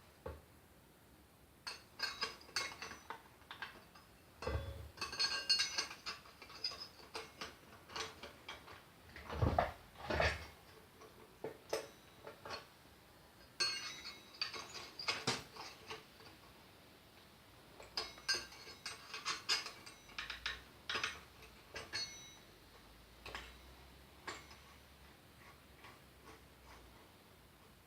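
Metal tools and chainsaw clutch parts clinking and knocking at irregular intervals, some with a short metallic ring, while a chainsaw clutch is taken apart by hand.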